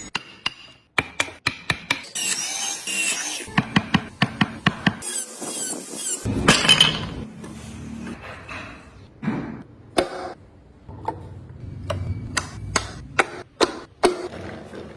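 Woodworking tools on wood: a run of sharp knocks and taps, with two short stretches of scraping or rasping about two and five seconds in.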